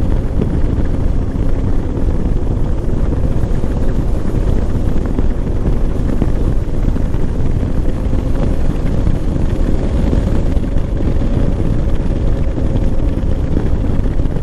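Moto Morini X-Cape 650 parallel-twin engine running at a steady pitch while the motorcycle rides along at road speed, with heavy wind rush over the microphone.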